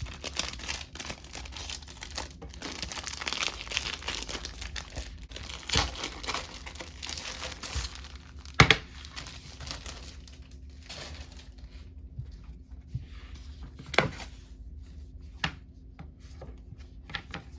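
Packaging of a tablet case crinkling and tearing as it is opened by hand, with a few sharp knocks, the loudest about halfway. The rustling thins out in the second half.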